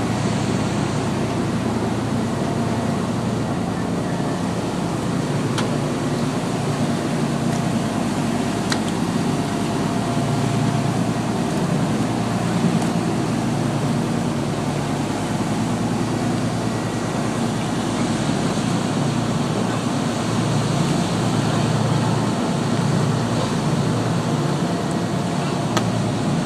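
Boat engine running with a steady drone, over the rush of water and wind past the moving hull. A few faint clicks sound on top.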